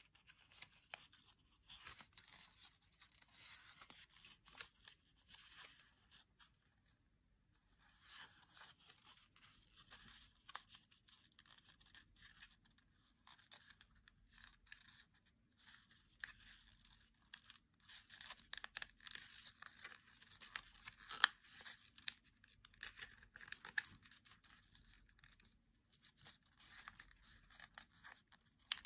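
Small square of origami paper crinkling and rustling as fingers fold, crease and shape it, in faint, irregular handling sounds with a short pause about seven seconds in.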